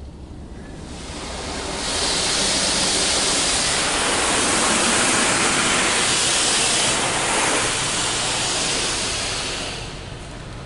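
Car wash spray arch drenching the car with water, heard from inside the cabin as a loud, even rush of spray on the roof and glass. It builds up about a second in and dies down near the end.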